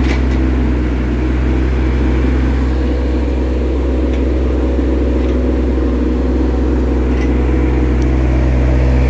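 Diesel engine of a John Deere 17D mini excavator running steadily while it digs.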